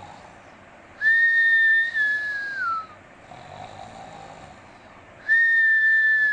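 A sleeping baby snoring with a high whistle through the nose on the breath. There are two whistles of about two seconds each, steady and then sliding down in pitch at the end, with softer breathing between them.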